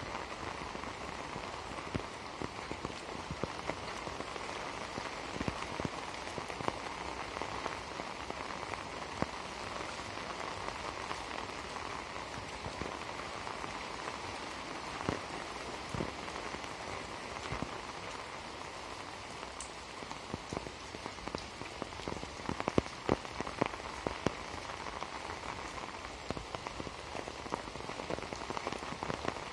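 Heavy rain falling steadily, an even hiss with scattered sharper taps.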